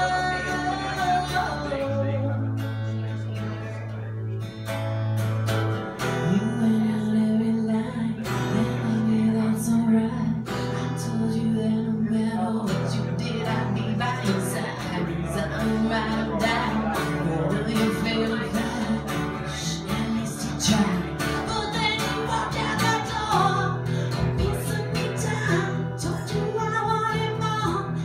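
Live acoustic duo: a woman singing over a strummed acoustic guitar, with an upright bass played with a bow holding long, sustained low notes underneath.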